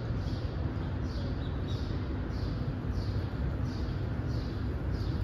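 Steady low rumble of a large indoor arena hall. Over it, a faint high falling chirp repeats evenly, about three every two seconds.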